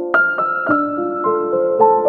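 Background music played on a piano or electric piano: soft, sustained notes with a new note struck every half second or so.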